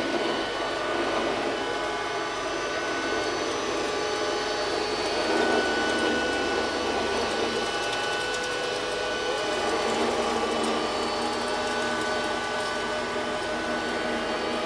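Clever&Clean Z-series robot vacuum cleaner running: a steady motor-and-fan whine, several pitches at once, over a hiss of brushes and airflow.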